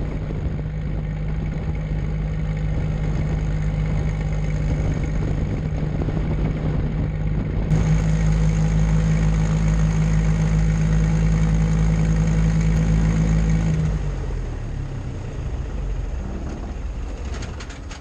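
Twin turbocharged engines and propellers of a Beechcraft Baron 58TC running with a steady drone. About eight seconds in, the drone steps up in pitch and gets louder. About fourteen seconds in, it slides down in pitch and fades as power comes back.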